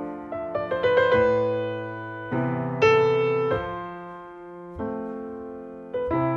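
Background piano music: a quick run of notes about a second in, then slow chords struck and left to fade.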